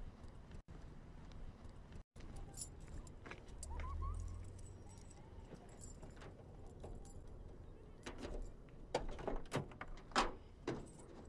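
Car keys jangling and rattling in a car's trunk lock, with a run of sharp clicks near the end as the lock turns and the trunk lid opens.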